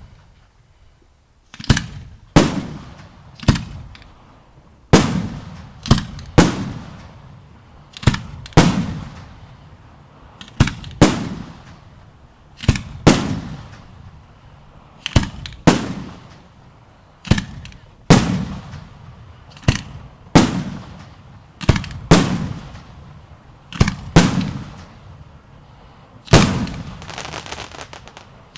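Fireworks shells bursting with loud bangs every second or two, often in close pairs, each followed by a fading low rumble. Near the end a burst trails off into crackling.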